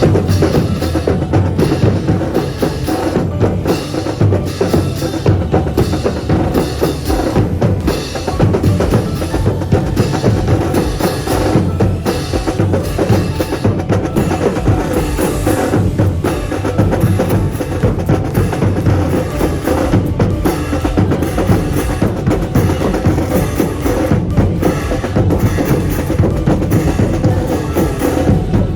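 Brass band playing live with a busy drum section, steady sharp drum strokes over sustained band tones.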